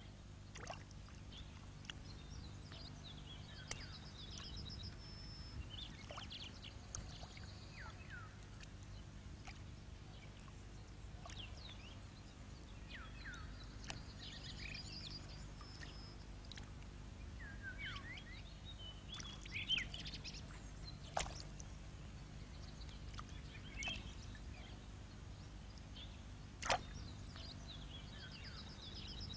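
Wetland ambience: scattered high bird chirps and short trills over a low steady hum, with a few sharp clicks, the loudest near the end.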